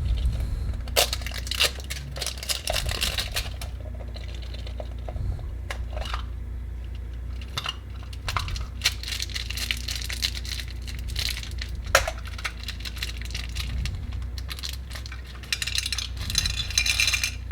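Hands opening and handling small plastic toy and candy packaging: scattered clicks, taps and crinkles, with a quicker run of clicks near the end.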